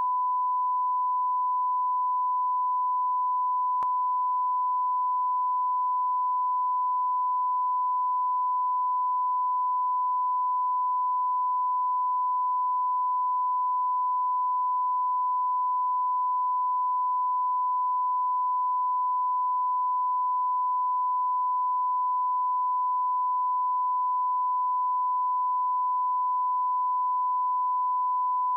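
Steady 1 kHz sine test tone, the line-up reference tone that goes with SMPTE colour bars, held at one unchanging pitch and level. A faint click comes about four seconds in.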